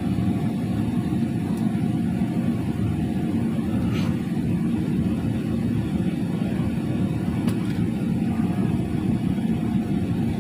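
Boeing 777 jet engines and airframe heard from inside the cabin by the wing: a steady, deep rumble while the airliner moves on the ground, with a couple of faint clicks.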